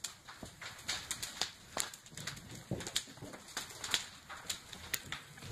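Fire crackling in the burning yurt: irregular sharp pops and snaps from the burning wooden frame and roof.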